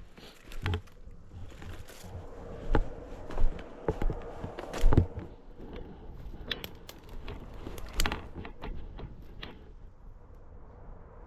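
Irregular crackles, clicks and thumps, as of someone moving through dry undergrowth and leaf litter, the loudest knocks clustered a few seconds in.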